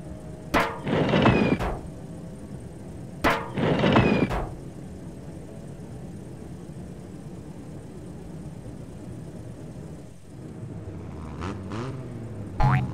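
Cartoon garbage-truck sound effects. Twice, a sharp clank is followed by about a second of clattering noise as a trash can is picked up and emptied, over a steady low engine hum. Near the end the engine revs up and down, and a thud comes just before the end.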